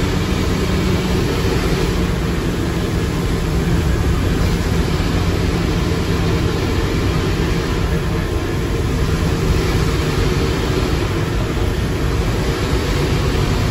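Scania K230UB bus's ZF Ecomat IV 6HP504C automatic gearbox and Scania DC09 engine running under way, heard through an open floor hatch as a steady, loud mechanical drone.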